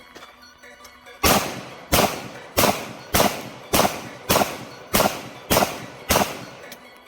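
Glock 17 Gen 3 9mm pistol fired nine times in a steady string, a shot about every 0.6 seconds, starting about a second in.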